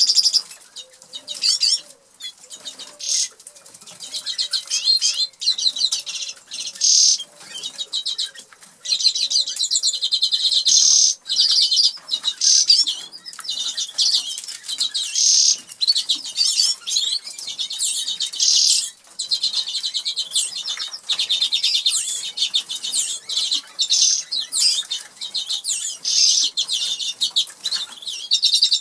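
Norwich canaries singing in fast, high trilled phrases with short breaks, over sharp clicks of a canary pecking and cracking seed in a plastic dish.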